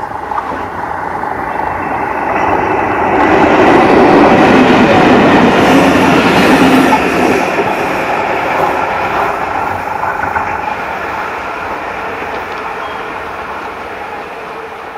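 An ALCO diesel locomotive leading an EMD WDG-4 diesel locomotive running past: engine noise and wheel clatter on the rails build to a peak about four to six seconds in, then slowly fade as the locomotives move away.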